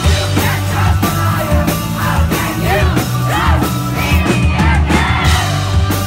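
Live rock band playing, with sung and shouted vocals over drums and a heavy bass line.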